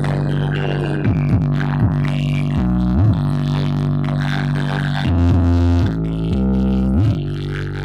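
Loud electronic dance music played through a huge Indonesian 'horeg' sound system: a deep droning bass line of held notes, with quick pitch swoops every second or two.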